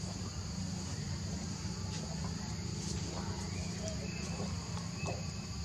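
Steady chorus of insects making a continuous high buzz in two pitches, over a low steady rumble, with a few faint short chirps through the middle and latter part.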